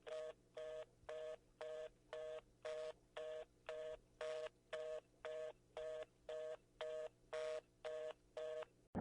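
Telephone fast busy (reorder) tone: a two-pitch beep pulsing on and off about twice a second. It is the phone network's signal that the call cannot go through, and it cuts off just before the end.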